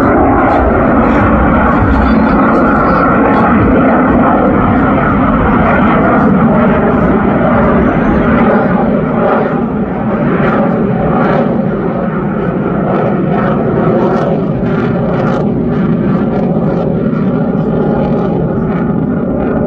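Loud, continuous jet noise from the F-22 Raptor's two Pratt & Whitney F119 turbofans as it flies its display, easing slightly about halfway through.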